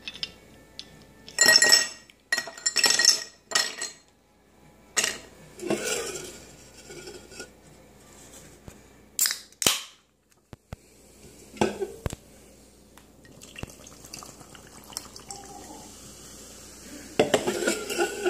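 Ice cubes clinking one after another into a tall glass tumbler, then an aluminium can of diet root beer cracked open and poured over the ice with a steady fizzing hiss, ending in a few clinks.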